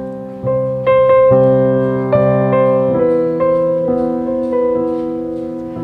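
Background music: a slow melody of struck notes, about two a second, each starting sharply and then fading.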